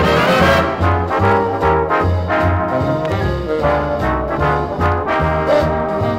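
Big-band swing music with trombones and trumpets leading over a steady bass line, played from a 1958 stereo LP.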